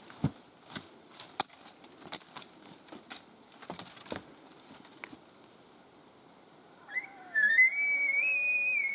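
Footsteps crunching and twigs snapping in dry brush. About seven seconds in, a loud, high, whistling elk bugle starts: it rises and is then held, over a fainter lower tone that falls.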